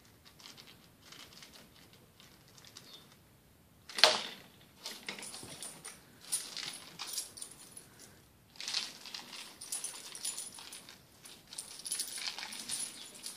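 Metal ID tags on a dog's collar jingling in spells as the dog jumps and tugs at a toy, with one sharp knock about four seconds in.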